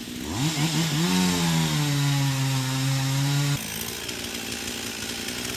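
Chainsaw revving up to full throttle and held there for about three seconds, then let off abruptly to a lower, quieter idle.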